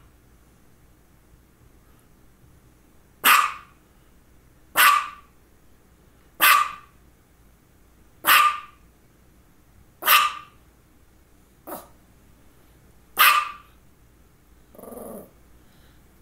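Small white dog barking persistently: seven single sharp barks, one about every one and a half to two seconds, starting about three seconds in, then a quieter, lower sound near the end.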